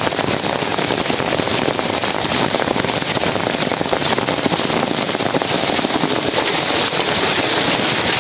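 Heavy hailstorm: hailstones pelting down on hard surfaces, a dense, steady patter of countless small impacts.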